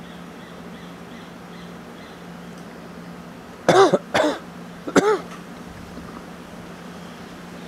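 Three short, loud animal calls close together, each rising then falling in pitch, over a faint steady hum.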